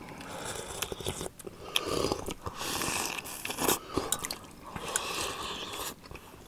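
Close-miked eating sounds from several men: chewing boiled organ meat and sipping broth from spoons and small bowls, with short light clicks of spoons on the bowls.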